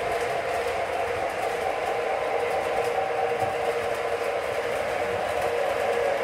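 O-scale model trains running on three-rail track: a steady rolling rumble of wheels on the rails with an even motor hum, growing a little louder near the end.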